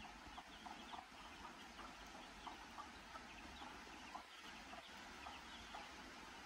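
Baby chicks peeping: many short, high chirps scattered throughout, faint.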